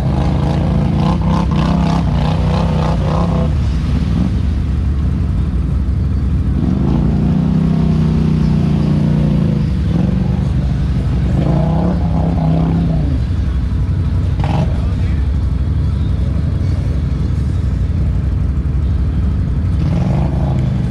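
ATV engine revving hard in three long bursts, rising and falling, as the quad sits bogged down in deep mud with its tyres churning, over a steady low engine drone.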